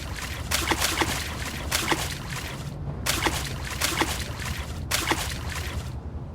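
An animal giving a series of short, harsh calls, one every half-second to second, over a steady low rumble.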